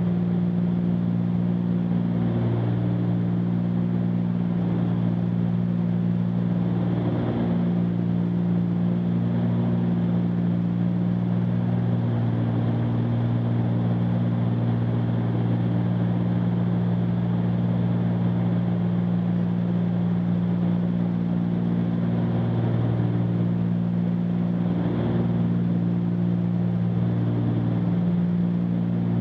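Cessna 310Q's twin piston engines and propellers droning steadily in cruise climb, heard from inside the cockpit as a constant low hum.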